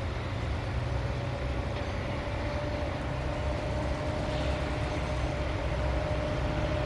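CFR class 65 diesel-electric locomotive approaching, its engine running with a steady low rumble and a held higher note above it, growing slowly louder.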